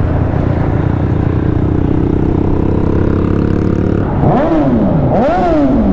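Suzuki GSX-S 1000's inline-four engine breathing through an aftermarket Two Brothers exhaust. It runs steadily at first, then from about four seconds in it is revved again and again, each rev climbing sharply and dropping back.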